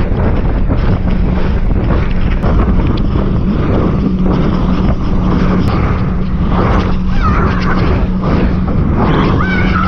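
Wind buffeting the microphone over the steady hum of a boat engine, on a fast inflatable boat ride across open water.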